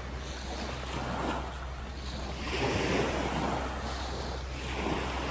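Small waves washing onto a sandy shore, swelling and easing twice, with wind rumbling on the microphone.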